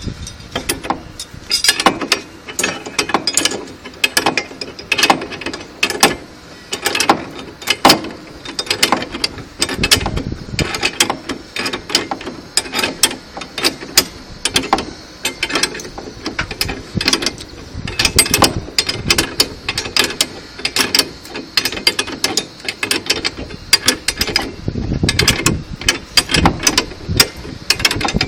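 Rapid, irregular metallic clicking, several clicks a second, like a ratchet mechanism being worked, probably while pipe-joint fittings are tightened.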